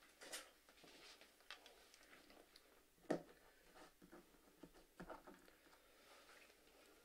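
Near silence with faint rustling and small knocks from an electric guitar being handled and plugged in. A sharp click comes about three seconds in, and a few smaller clicks about five seconds in.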